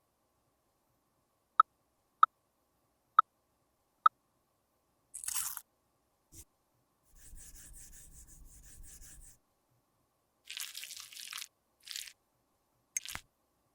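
Close-up crafting sounds of makeup being worked by hand: four sharp clicks about a second apart, then short crunching and scraping sounds.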